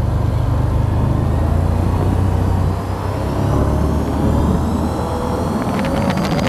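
Quad bike (ATV) engine running at a steady riding pace on a rough dirt road, easing off briefly about three seconds in and then picking up again. A few sharp knocks come near the end.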